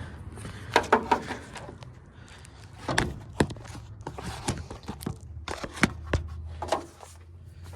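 Scattered clicks and knocks of a jumper cable and its metal clamps being handled at the starter solenoid, over a faint low steady hum; no engine cranking.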